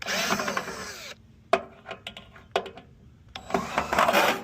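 Cordless drill running in two short bursts of about a second each, backing screws out of a tankless water heater's casing, with a few sharp metal clicks in between.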